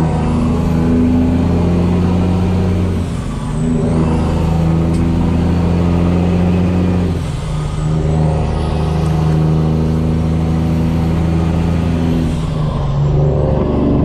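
Semi truck's diesel engine heard from inside the cab, pulling steadily through the gears. The engine note drops away briefly at each of three upshifts, about every four to five seconds. A high turbo whistle falls at each shift and climbs back as the engine pulls again.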